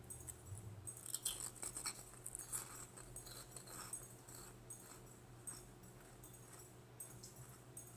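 Faint, irregular crunching of puffed wheat snacks being chewed, busiest in the first half, over a low steady hum.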